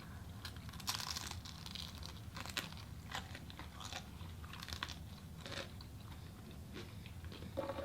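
People chewing food close to the microphone: soft, irregular crunching and wet mouth clicks of eating noodles and egg rolls.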